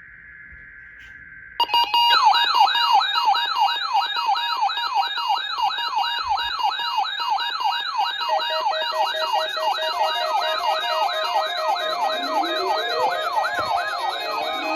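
A short, faint burst of EAS data tones closing the alert message, then, about a second and a half in, a loud electronic siren-like warble. The warble sweeps up and down about three times a second and is joined later by further synthesized tones and rising glides.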